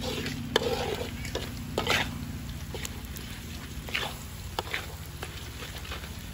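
Clams being stir-fried in a wok: irregular knocks and scrapes of the spatula and shells over a steady sizzle.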